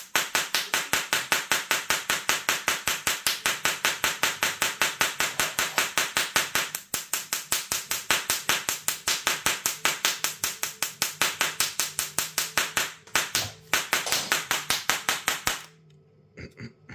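Sparks from the discharge needle of a small Tesla coil arcing to a hand and then to a metal spoon held above it: a rapid, even train of sharp snaps at about seven a second. The snapping breaks off briefly about seven and thirteen seconds in and stops about a second before the end.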